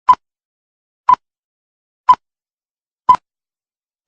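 A row of short, identical electronic beeps, one every second, with dead silence between them.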